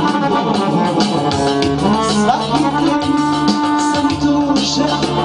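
Live band music: accordion and electronic keyboard playing a melody over a steady accompaniment.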